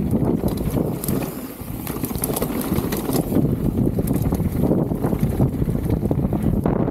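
Wind buffeting an action-camera microphone over the rolling noise and rattle of a Specialized Status 160 mountain bike riding a dirt trail, with a brief dip in level about a second and a half in.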